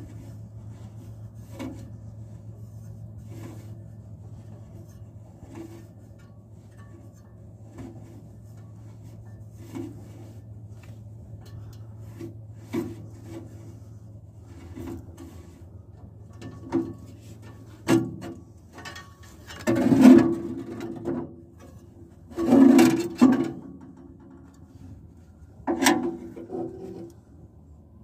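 Metal parts of a tractor's fan drive being worked by hand as the fan blades and their bolts are taken off. Faint clicks come about every two seconds, then, in the last third, several louder metal scrapes and clanks as the fan is shifted.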